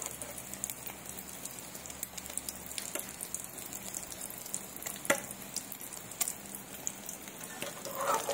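Egg frying in hot oil in a metal pan: a steady sizzle with scattered crackling pops, and one sharper crack about five seconds in.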